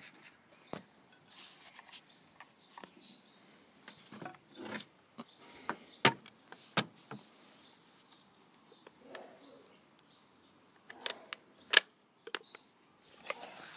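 Scattered metallic clicks and clacks from handling the action of a Hakim 7.92×57 mm semi-automatic rifle, with sharp clicks about six seconds in, again just under a second later, and near the end, and light rattling between them.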